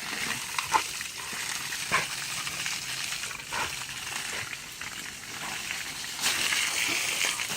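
Water spraying in a steady hiss, with a few short clicks and splashes; the spray grows louder about six seconds in.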